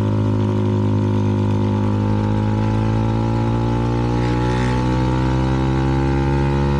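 CFMoto 300NK's single-cylinder engine running through an aftermarket KO exhaust, carrying two riders, its pitch rising slowly and steadily as the bike gains speed.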